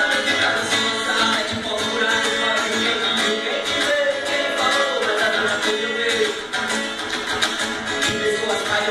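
Music with a plucked guitar, from a live rap performance, recorded on a phone with little bass.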